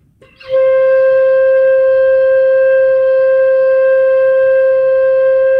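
Flute holding one long, steady note as a breathing warm-up long tone, sustained for six beats. It is the second note of the scale, written A in the saxophone part. It starts about half a second in and holds at an even level without a break.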